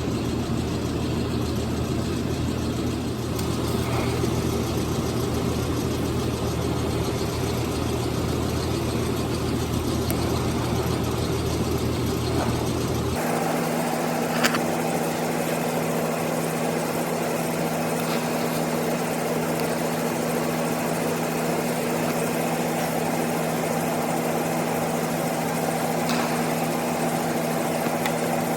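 Handheld power grinder running steadily while grinding down metal clutch parts. About halfway through, its steady tone changes abruptly to a different, higher set of tones.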